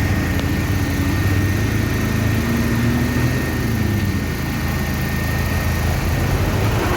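An engine running steadily at a low, even pitch, with a faint thin whine above it.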